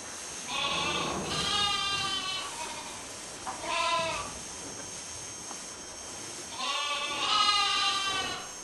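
Livestock bleating: three long, quavering calls, the first starting about half a second in, a shorter one around four seconds, and another long one near the end.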